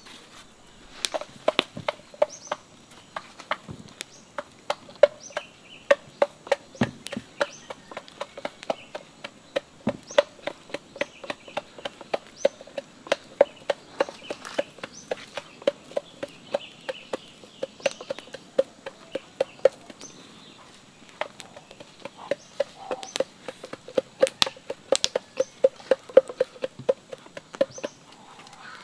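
Wooden pestle pounding in a hollow bamboo-tube mortar, crushing shallots, garlic and spices: a long run of rapid hollow knocks, a few to the second, thinning briefly a little after two-thirds through.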